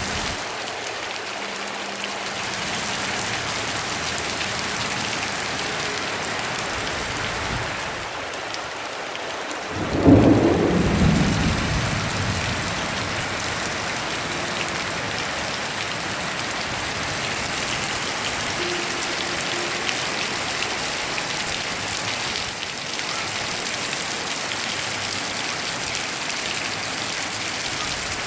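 Steady rain, with a single thunderclap about ten seconds in that rumbles away over a couple of seconds.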